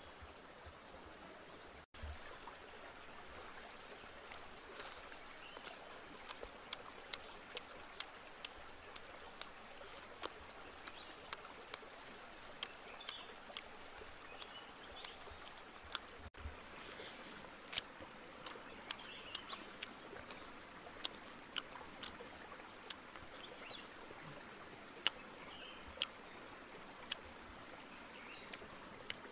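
Close-up eating of fried chicken: sharp, wet chewing clicks and lip smacks, roughly one or two a second, over the steady rush of a stream.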